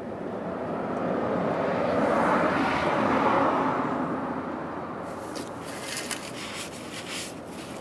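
A vehicle passing by, its noise swelling to a peak and fading away over about five seconds. Near the end comes a scattered crinkling of plastic sheeting being handled.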